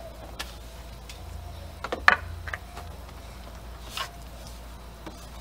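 Separate plastic clicks and knocks as the Dolphin Nautilus pool robot's top cover is handled and pressed into place, five or so taps with the loudest about two seconds in.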